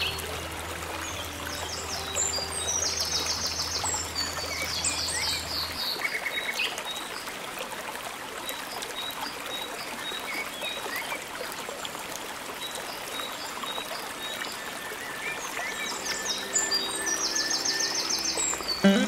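Nature ambience: a steady trickle of running water, with birds calling in short, rapid chirping trills now and then. A low drone underneath fades out about six seconds in.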